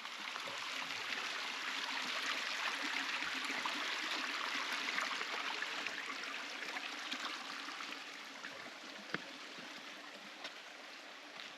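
Stream water rushing, swelling through the middle and fading toward the end, with a couple of faint knocks late on.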